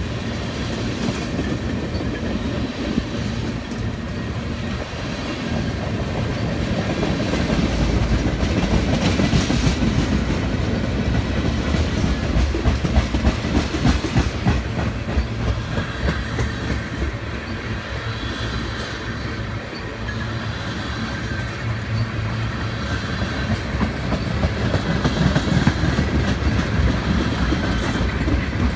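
Freight train tank cars rolling past with a steady rumble, their wheels clacking over the rail joints.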